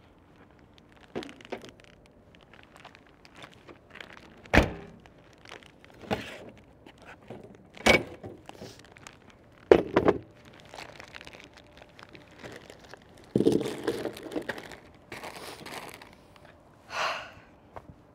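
Things being unloaded from a car's open hatch and a folding stand being set up: several separate sharp knocks and thunks with rustling between them, and a longer clatter about three quarters of the way through.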